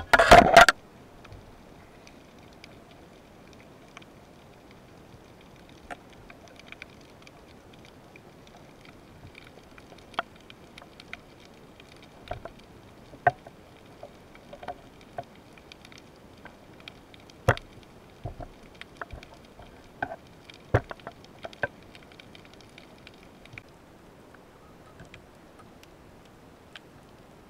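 Underwater sound: a loud cluster of knocks right at the start, then scattered sharp clicks and ticks over a faint steady hiss and a faint high hum that stops near the end.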